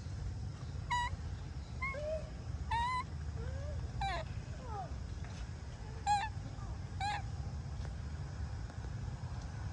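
Long-tailed macaque giving about eight short, high squeaky calls in the first seven seconds, some sliding down in pitch, over a steady low rumble.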